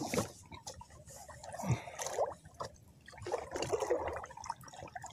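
Sea water lapping and sloshing against a small wooden boat's hull, with a few faint knocks.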